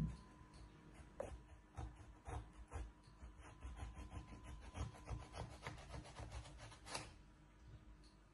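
Knife sawing through a whole melon on a wooden cutting board: a quick run of short strokes, about three to four a second, that stops about seven seconds in as the melon falls into two halves.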